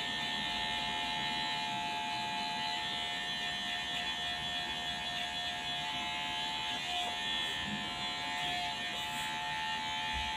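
Electric hair clippers running with a steady buzz, cutting hair over a comb.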